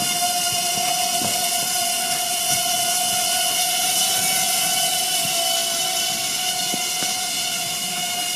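SteamMaker CupDrone, a small Arduino-based quadcopter, in flight: its motors and propellers make a steady high whine with a hiss over it.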